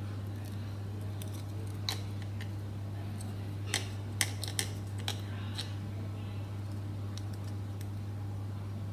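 Loose steel ball bearings being picked out of a Shimano hub's bearing cup with a screwdriver tip and landing in a hand: a handful of light metallic clicks, most of them bunched in the middle, over a steady low hum. The hub's grease has dried out.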